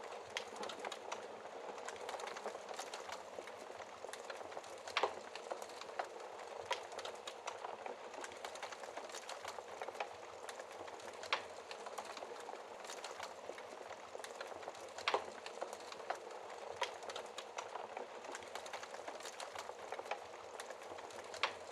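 Wood fire crackling in a fireplace: a steady hiss with frequent small pops, and a few louder snaps, about five, eleven and fifteen seconds in and again near the end.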